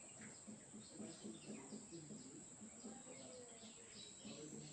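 Faint garden ambience: small birds chirping in short falling calls, over a steady high-pitched hiss, with faint distant voices underneath.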